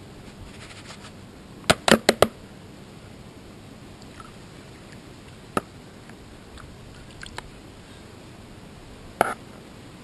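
Hard plastic gold pans knocking against each other and the tub while being handled: a quick cluster of four sharp clacks about two seconds in, then single clacks spaced out after that.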